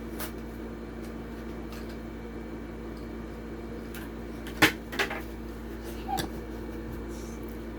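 A few sharp clicks and knocks from handling a toy car and its packaging, the loudest about halfway through, over a steady electrical hum.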